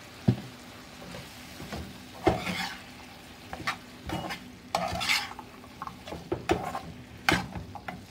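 Metal slotted spatula stirring cut okra into tomato masala in a frying pan: irregular scrapes and clicks of the spatula against the pan over a faint steady sizzle.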